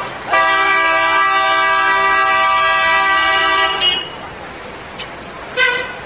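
Vehicle horn held steadily for about three and a half seconds, then a short toot near the end, over a faint hum of city traffic.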